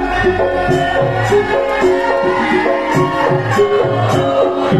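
Javanese gamelan music accompanying a lengger dance: held metallophone-like tones over a steady rhythm of sharp percussion strokes and bending low drum tones.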